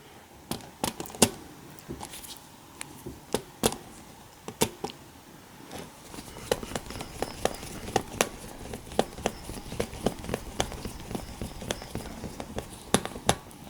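A series of sharp, irregular clicks and taps: a few loud single clicks early, then a quicker, denser run of lighter clicks through the middle, and two loud clicks near the end.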